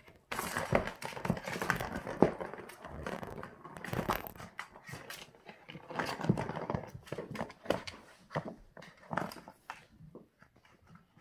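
Plastic ball-track cat toy clattering and rattling as a kitten bats the ball around the track and scrambles against the plastic: irregular knocks and rolling rattles that start suddenly and thin out near the end.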